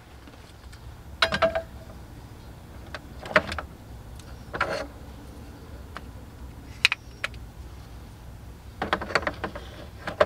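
Hands handling a capsule coffee machine and its plastic coffee capsules on a counter: several short, separate clicks and clatters, the busiest cluster near the end, over a faint steady low hum.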